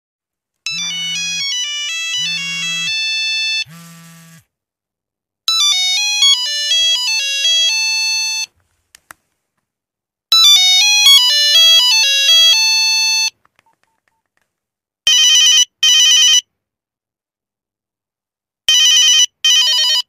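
Nokia mobile phone ringtones played one after another: three short electronic note melodies with brief pauses between them, the first with three low buzzing pulses underneath. Near the end come two pairs of short trilling rings.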